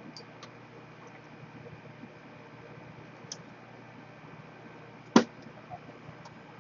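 Light clicks and taps of small tools on a repair bench, with one sharper click about five seconds in, over a steady faint hum.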